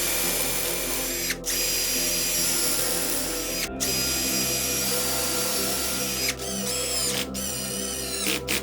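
An electric power tool's motor running at speed in repeated runs, briefly stopping several times and changing pitch as it spins back up near the end.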